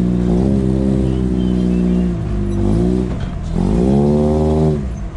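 Off-road buggy engine revving up and down as the throttle is pressed and eased, its pitch rising and falling in about three surges, the highest about four seconds in and dropping away near the end.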